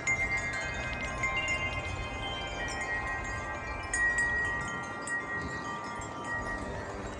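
Wind chimes ringing in the wind, several tubes struck together so their long tones overlap and die away slowly. A fresh cluster of strikes comes about four seconds in.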